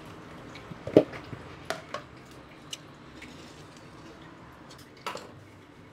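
Kitchenware being handled on a stone countertop: a stainless pot and a plastic colander moved and set down. A sharp knock about a second in, a few lighter clicks after it, and another knock near the end.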